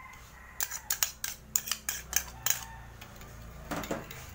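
Metal spoon clinking and scraping against a small glass bowl while stirring a fish-sauce dipping sauce: a quick run of sharp clinks, then a few more near the end.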